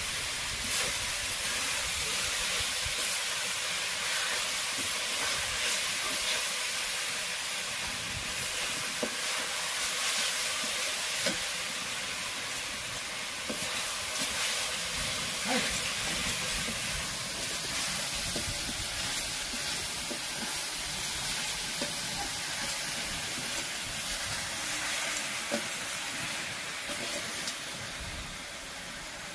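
Grated coconut sizzling in melted sugar in a metal kadai as it is stirred with a metal spoon: a steady hiss with scattered clicks and scrapes of the spoon against the pan.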